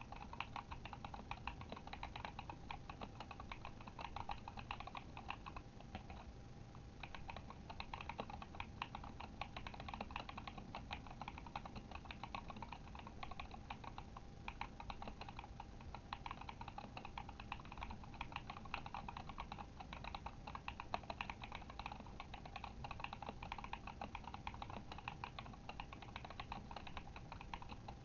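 Continuous fast typing on a Kemove Shadow mechanical keyboard with Glorious Panda tactile switches: a dense, uneven stream of keystroke clicks, with a brief pause about six seconds in.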